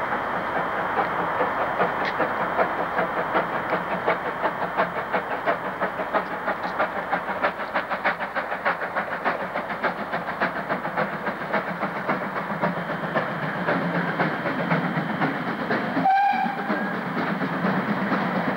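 Steam locomotive approaching under power, its exhaust beating in a quick, steady rhythm, with one short whistle blast about sixteen seconds in.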